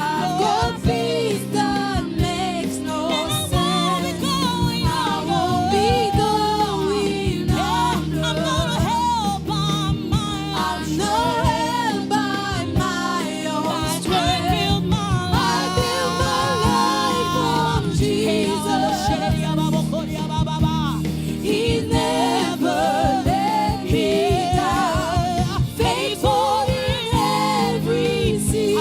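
Gospel choir singing a worship song over instrumental accompaniment with a steady beat.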